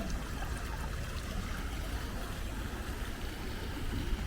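Steady trickling of running pool water over a low, even rumble.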